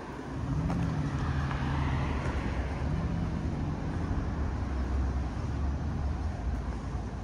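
Motor vehicle engine on a city street: a low rumble with a steady engine hum that comes in about half a second in and fades after about four seconds, over general traffic noise.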